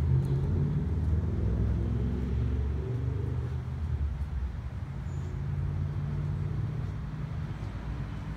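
A motor vehicle's engine running with a low rumble, strongest over the first few seconds and then steady.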